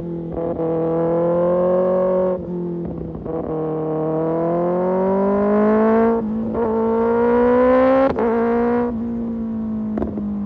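Kawasaki ZX-6R inline-four engine through an Arrow Pro Race exhaust, pulling under acceleration with a rising pitch. Short breaks about two, six and eight seconds in sound like upshifts. The pitch eases slowly down over the last couple of seconds.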